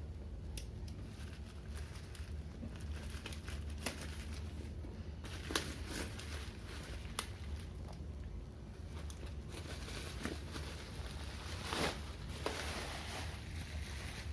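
Delivery packaging being torn open and handled: crinkling and rustling broken by scattered sharp rips and clicks, with a longer, denser tearing rustle about twelve seconds in. A steady low hum runs underneath.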